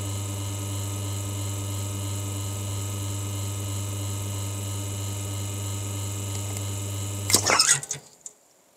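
Lelit Bianca espresso machine's rotary pump humming steadily while a shot pulls. Near the end the pump shuts off with a short, loud burst of noise as the shot is ended, and then it goes quiet.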